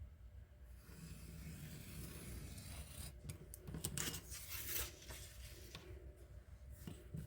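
X-Acto craft knife drawn through printer paper along a metal ruler, a faint scratching that grows into a louder run of scratchy cutting strokes about three to five seconds in.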